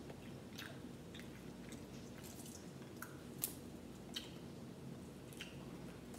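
Close, quiet eating sounds: chewing and wet mouth smacks mixed with the small cracks and snaps of boiled crawfish shells being peeled by hand, with a sharper snap about three and a half seconds in.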